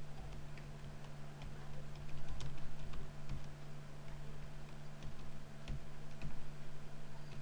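Computer keyboard being typed on, a scatter of irregular key clicks, over a steady low hum.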